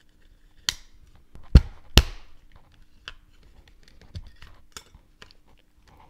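Plastic clicks and snaps from a TV remote control's battery compartment being opened and its batteries taken out. There are a few sharp clicks, the two loudest about one and a half and two seconds in, then lighter ticks.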